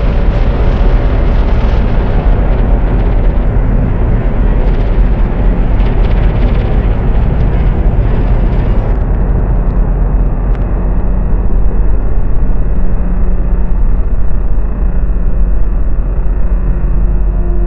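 Loud, dense rumbling noise drone with a heavy low end. About nine seconds in the upper hiss cuts off abruptly, leaving a duller rumble with a few faint steady tones.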